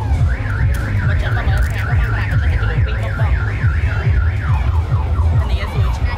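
Electronic alarm siren cycling through its tones: a fast up-and-down warble about five times a second, which switches a little after four seconds in to a run of quick falling whoops, over a steady low rumble.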